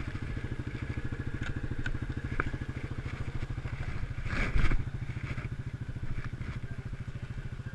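Quad (ATV) engine idling close by with a steady, rapid low putter. A brief clattering knock comes about halfway through.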